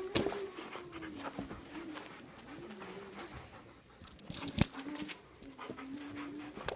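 Dog panting, with a soft wavering whine that rises and falls and a few scattered clicks.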